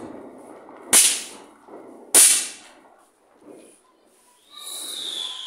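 Throw-down snap-pop fireworks bursting on concrete: two sharp cracks, a little over a second apart. Near the end a hiss with a slowly falling whistle comes in.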